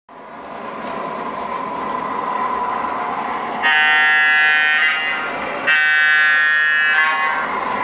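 MTH Premier O-gauge PRR GG1 model electric locomotives running on the track, with a steady rolling rumble and a thin whine that rise from silence at the start. Their Proto-Sound 2 sound system sounds two long horn blasts, the first about three and a half seconds in and the second right after it.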